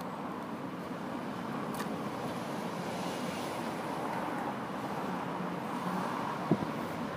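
Steady street noise with wind on the microphone and the distant running of a Gotha-type tram as it moves away down the track. A single sharp knock comes about six and a half seconds in.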